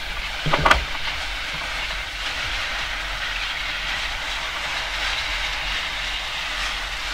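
Under-ice lake sound through a hydrophone: a dense, steady crackle of tiny snaps and pops over a hiss, heard after hot water was poured down the ice hole. The snaps rose sharply after the hot water, which the researchers take as a sign of tiny cracking at the ice–water interface rather than an animal making them.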